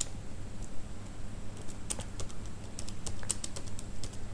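Computer keyboard being typed on: irregular keystroke clicks, a few at first, then quicker runs from about two seconds in.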